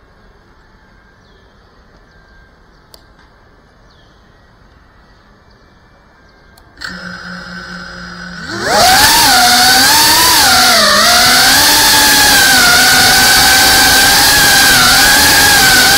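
FPV quadcopter's brushless motors and propellers: they start spinning at a low steady idle about seven seconds in, then throttle up into flight about two seconds later. The loud whine has several pitches that waver up and down with the throttle.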